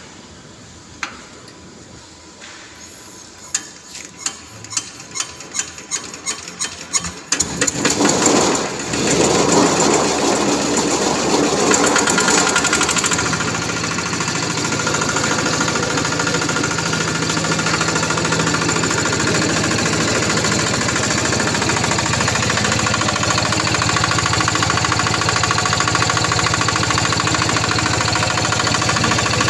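Yanmar TF85 single-cylinder diesel engine being cranked over, its clicks speeding up, until it catches about seven seconds in. It runs loud for a few seconds, then settles into steady running.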